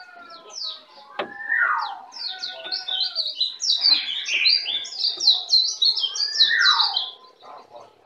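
Several songbirds chirping and singing together in a bird-song 'masteran' track of the kind played to tutor caged songbirds. A dense run of quick, high, falling chirps is loudest through the middle, with a couple of longer falling whistles lower down.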